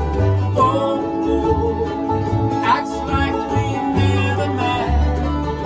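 Live acoustic bluegrass band playing an instrumental break: banjo, fiddle, mandolin, acoustic guitar and dobro over a moving upright bass line, with a brief rising slide about halfway through.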